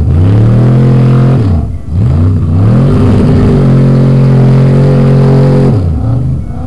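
A Chevy pickup's engine revs hard as the truck churns through a mud pit in two-wheel drive. The pitch climbs right at the start, drops and climbs again twice around two seconds in, holds high, then falls near the end as the throttle comes off.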